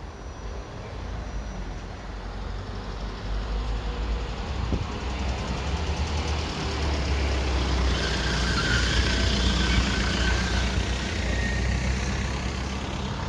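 A motor vehicle's engine running close by on the street, growing louder to a peak about two-thirds of the way through, with a brief whine near the loudest point, then easing off.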